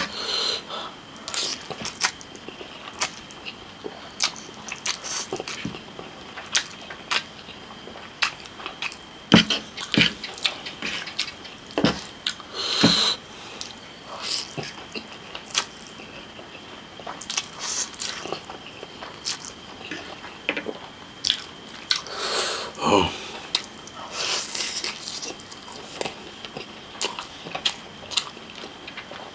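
Close-up mouth sounds of eating spicy instant noodles: wet chewing and lip smacks, with a few longer slurps of noodles, then bites into a cooked chicken leg near the end.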